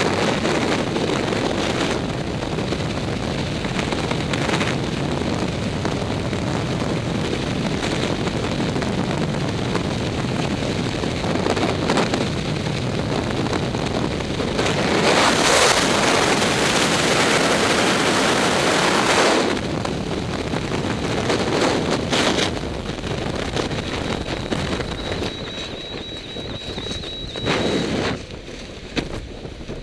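Wind buffeting the microphone over a steady rushing noise, swelling for a few seconds about halfway through and fading near the end.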